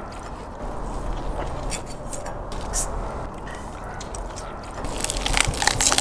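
Knife cutting through the crisp crust and meat of a whole tandoor-roasted lamb on a wooden board, with small clicks and scrapes, and a louder cluster of cracks near the end as the meat is torn apart.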